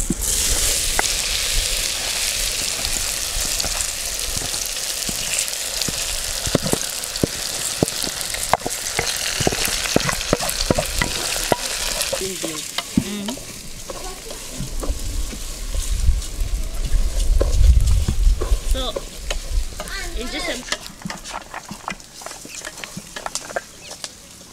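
Raw rice spooned into hot oil in an aluminium pot, sizzling and hissing loudly the moment it hits the oil, with a wooden spoon scraping the rice out of an enamel bowl. The sizzle dies down about halfway through as the pot fills, leaving quieter frying and spoon scrapes.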